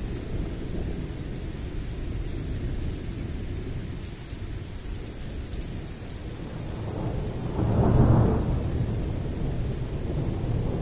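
Thunder rumbling low and continuously over falling rain, the rumble swelling to its loudest about eight seconds in before easing off.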